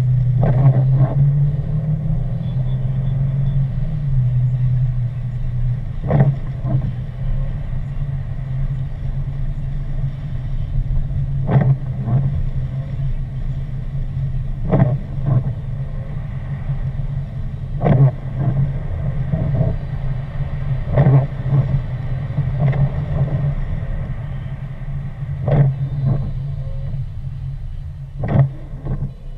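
Car driving on a wet road, heard from inside the cabin: the engine and tyres make a steady low hum. Over it, short knocks or swishes come every few seconds, often in pairs.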